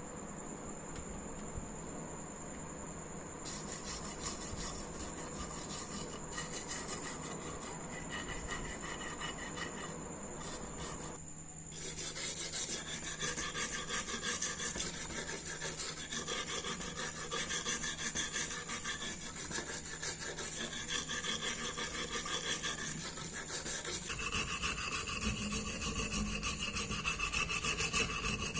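Abrasive scraping back and forth on the rusty metal of a vegetable slicer, a rapid run of rubbing strokes with a scratchy pitched edge. It is fainter at first and becomes louder and denser about twelve seconds in.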